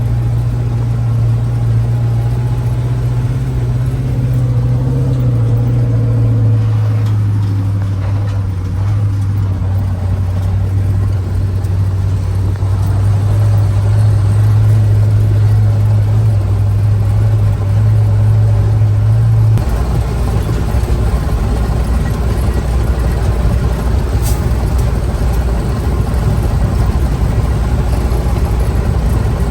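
Logging truck engine running steadily with a strong low hum. About two-thirds of the way through, the sound changes abruptly to a deeper, rougher engine noise.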